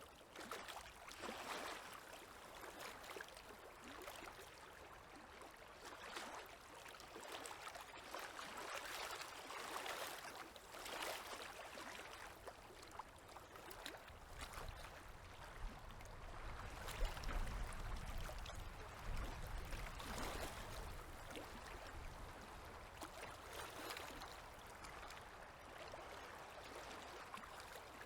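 Small river waves lapping at the shore, soft swishes every second or two. A low rumble joins in about halfway through for several seconds.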